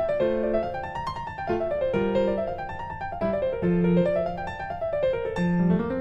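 Background piano music: quick arpeggios rising and falling in repeating waves over slow low bass notes.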